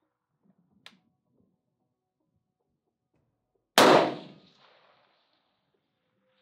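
A single shot from a Steyr AUG bullpup rifle firing 5.56 mm ammunition about four seconds in, with a loud crack and a tail of echo dying away over about a second. A faint sharp click comes about a second in.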